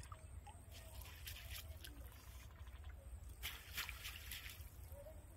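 Water trickling and splashing off a wet cast net as it is lifted and gathered by hand in shallow water, in two bursts, the second, about three and a half seconds in, the louder.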